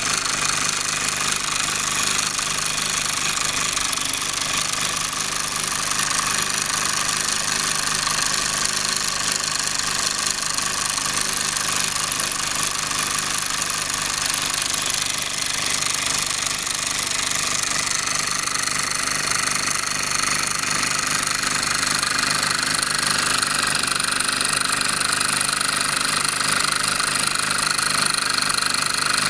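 Mamod toy stationary steam engine running fast, its small oscillating cylinder chuffing in a rapid, steady rattle.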